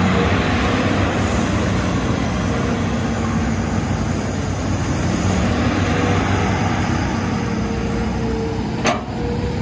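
Hitachi Zaxis excavator's diesel engine running steadily, with a sharp click near the end.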